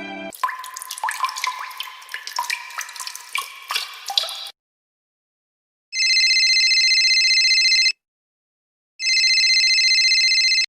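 Water-like dripping and plinking, many quick sharp drops with ringing pitched notes, for about four seconds. After a pause come two rings of a telephone-style electronic ringer, each a steady buzzing multi-tone ring about two seconds long, a second apart.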